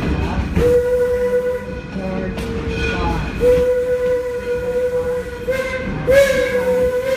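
Steam whistle of Detroit & Lima Northern locomotive No. 7 sounding a series of blasts, long, long, short, long, the pattern of a grade-crossing signal, over the low rumble and clatter of the train rolling along the track.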